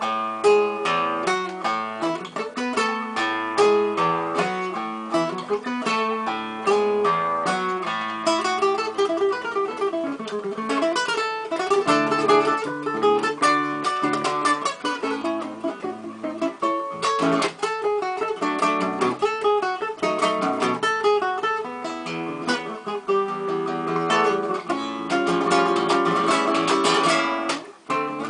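Background music: a plucked acoustic-guitar melody with quick successive notes, briefly dropping out near the end.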